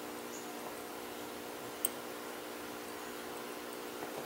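Faint clicks of a lock pick working the pins of a Marks (Skorpion) lock cylinder held under tension, with one sharper click about two seconds in, over a steady hum.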